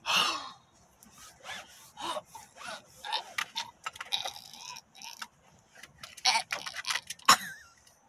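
A car seatbelt's webbing being pulled and dragged across a hooded sweatshirt, scraping and rustling in short strokes, with strained grunts and gasping breaths from a person struggling to get the belt on.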